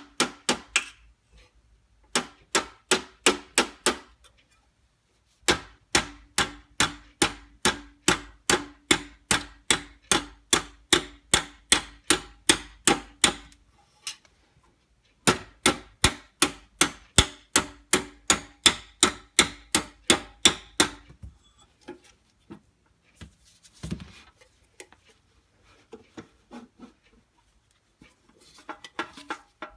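Hammer tapping repeatedly on sheet-metal toolbox work, about three blows a second in runs of several seconds, each blow with a short metallic ring; after the last run come a few scattered lighter knocks.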